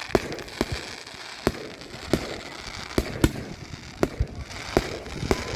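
Fireworks going off at close range: a string of sharp bangs at irregular intervals, a dozen or so in a few seconds, over a steady crackle.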